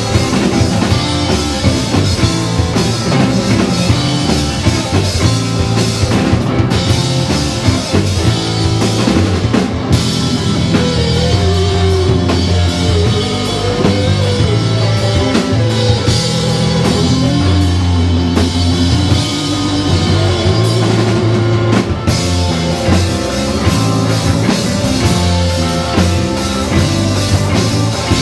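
Live rock band playing: a Pearl drum kit driving a steady beat under electric guitar and bass guitar.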